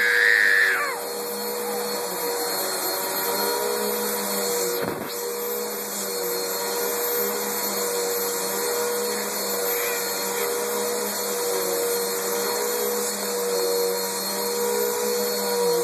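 Vacuum cleaner running steadily, a constant motor drone. Right at the start there is a baby's brief high squeal, and about five seconds in a single knock.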